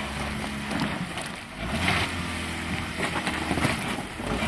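Four-wheel-drive off-road vehicle's engine running at low revs, picking up a little about halfway through, as it works over a trail obstacle.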